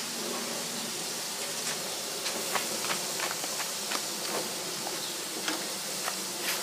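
Chicken wings sizzling on a hot grill: a steady hiss with scattered small pops and crackles of spitting fat.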